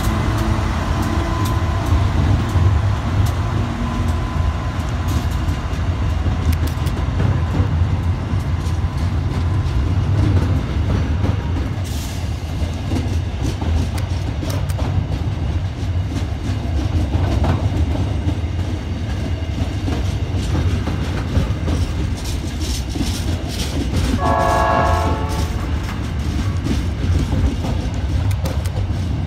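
Loaded iron ore freight train rolling past: a steady low rumble with the clickety-clack of wheels over rail joints. A brief horn of several notes sounds about 24 seconds in.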